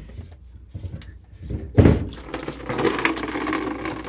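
A few knocks of the plastic sediment-filter bowl as it is unscrewed and pulled free, the loudest about two seconds in. Then the water left in the filter housing pours out and splashes into a plastic trash can.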